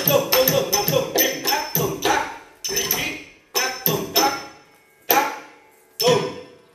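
Bharatanatyam rhythmic accompaniment of sharp percussive strokes with a metallic ring. The strokes come quickly, about four a second, for the first two seconds, then thin to four spaced single strokes that each ring away.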